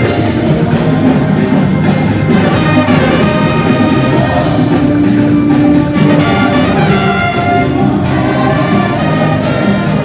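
Live band music with a horn section of trumpets, trombone and saxophone playing a melody together, loud and continuous.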